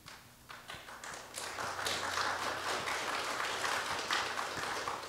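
Congregation applauding: a few scattered claps that build into steady applause about a second and a half in, then die away near the end.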